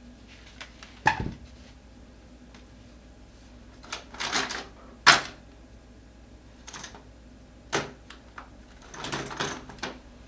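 Handling of tools and scooter parts during a wheel repair: scattered sharp clicks and short clattering rustles, the loudest click about five seconds in.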